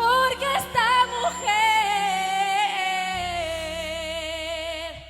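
Live band music: a female singer holds a long, wavering sung note that sinks slowly in pitch, over sustained low accompaniment chords.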